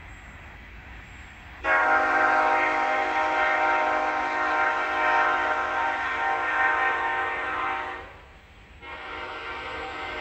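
Train horn sounding a steady multi-note chord: one long blast starting abruptly about a second and a half in and cutting off near 8 seconds, then a second blast starting shortly after.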